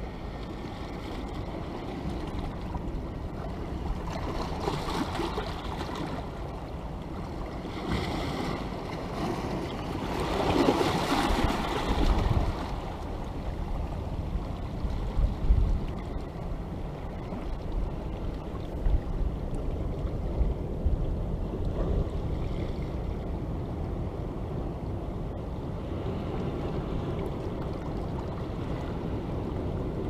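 Sea waves washing in and draining off a rocky shore, rising and falling in surges, with the biggest surge about ten seconds in. Gusts of wind buffet the microphone with a low rumble.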